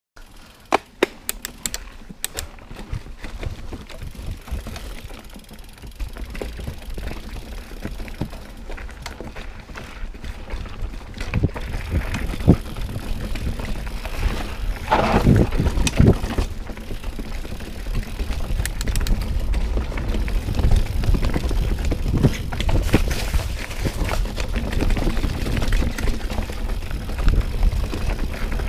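Mountain bike ridden fast down a dirt forest singletrack: tyres rolling over dirt and roots with the bike's chain and frame rattling and knocking. Sharp clicks and knocks stand out in the first few seconds, and the riding noise grows louder about halfway through.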